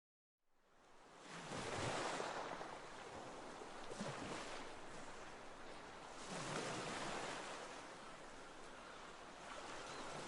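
Ocean waves washing in, faint, starting about a second in and swelling and fading about three times.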